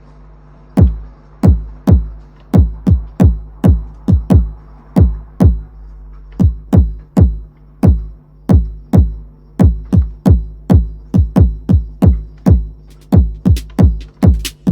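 Electronic drum jam on a Roland T-8 rhythm machine: a booming kick drum that drops quickly in pitch, hitting in a syncopated pattern about twice a second, over a low held synth note. The kick comes in about a second in, and a brighter, sharper hit joins near the end.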